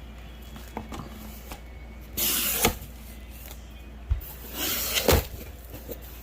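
Packaging being handled during an unboxing: two bursts of rubbing and rustling, each ending in a sharp knock, the first about two seconds in and the second near the five-second mark.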